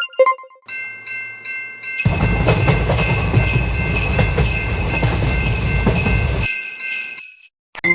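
Railroad crossing warning bell ringing; about two seconds in a train passes with a loud rumble that lasts about four seconds, then the bell rings on alone briefly and stops.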